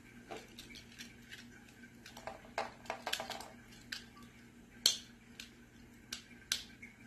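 Scattered light plastic clicks and clatter from a Beyblade spinning top and its string launcher being handled and fitted together. Two of the clicks are sharper, one about five seconds in and one near the end.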